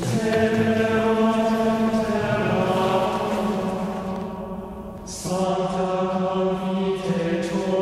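Slow vocal chant with long held notes. It fades down about four seconds in and comes back about a second later.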